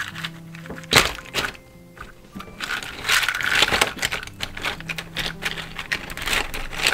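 Whole walnuts in their shells clacking and knocking against each other inside a plastic mesh net bag as it is handled and its clip worked open, with crinkling of the net; one sharp knock about a second in. Soft background music with held notes underneath.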